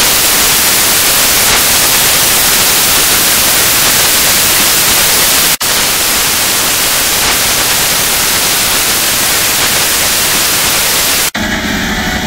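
Loud, steady static hiss like white noise, cut by a brief dropout about halfway through. Near the end it switches abruptly to a different electronic sound holding steady tones.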